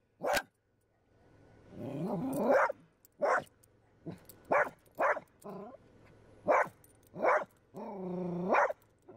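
Small terrier barking in short, sharp barks, about six of them, with two longer drawn-out growling barks, one about two seconds in and one near the end.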